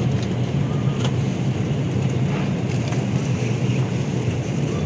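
Steady low drone of an airliner passenger cabin, with a couple of faint knocks.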